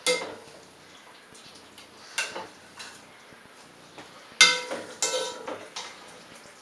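A cooking utensil clinking and knocking against a pot on the stove: a handful of sharp clinks that ring briefly, the loudest about four and a half seconds in.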